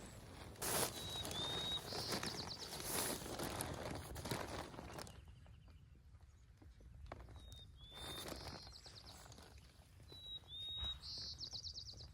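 A songbird singing the same short song three times: a whistled note or two, then a quick trill. A rushing noise with a few knocks underlies the first song and fades about five seconds in.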